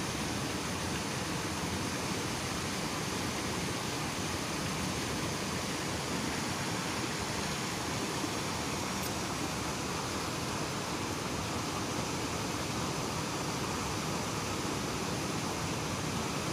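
Steady, even rushing noise with no rhythm and no changes, and a single faint tick about nine seconds in.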